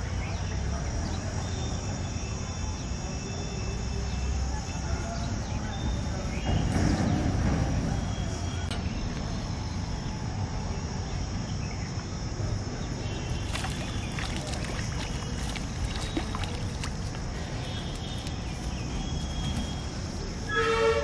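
Outdoor background noise: a steady low rumble like distant traffic, with a faint high insect drone. It swells louder briefly about seven seconds in, and a short pitched call sounds near the end.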